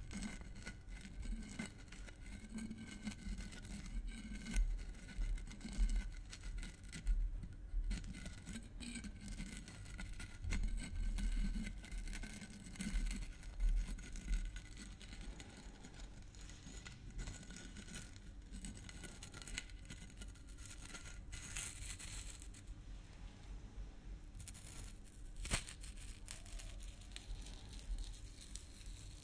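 Red plastic cap of a glass maple syrup bottle being fiddled with, opened and closed: irregular small clicks, scrapes and scratchy plastic-on-glass noises, with low handling bumps. The scratchier stretches come about two-thirds of the way through.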